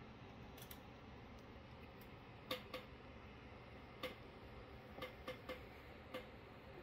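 Sharp, light clicks at irregular intervals, about eight of them starting a couple of seconds in, over faint room hiss.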